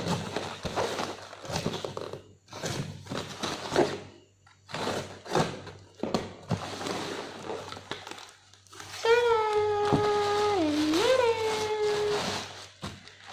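Plastic packaging rustling and crinkling in irregular bursts as a parcel is unwrapped by hand. About nine seconds in, a high voice holds one long note that dips once, lasting about three seconds.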